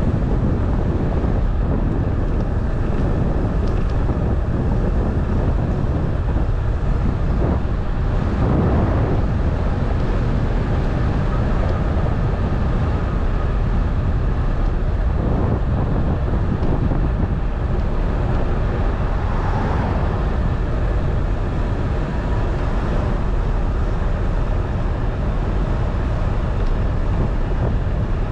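Steady road rumble of a moving vehicle, with wind buffeting the microphone.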